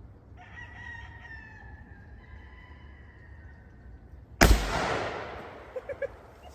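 A rooster crows once, then about four seconds in a single bolt-action rifle shot goes off, loud and sharp, its echo fading over about a second.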